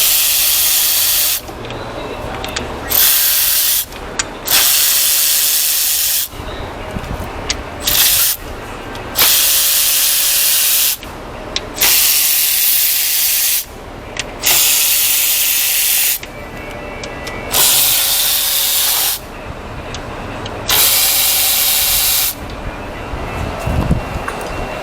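A pressurised jet hissing in about nine short bursts of one to two seconds each, starting and stopping abruptly, on a Jeep 3.6 V6 being taken apart for misfire diagnosis.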